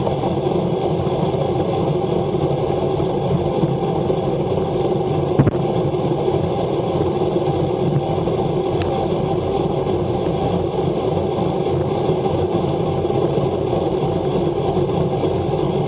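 Steady rush of wind and tyre noise from a road bicycle riding fast on a wet road, picked up by a handlebar-mounted action camera, with a single light knock about five seconds in.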